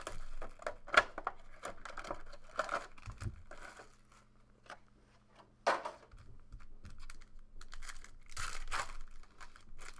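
Clear plastic shrink-wrap being torn off a hobby box of trading cards and crumpled, in crackling bursts with a sharp click about a second in, then further crinkling near the end.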